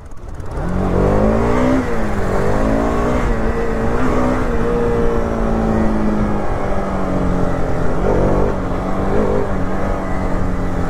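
Bajaj Pulsar RS200's single-cylinder engine running under way as the bike is ridden. The note climbs over the first couple of seconds, dips briefly and climbs again, then holds fairly steady with a few small dips.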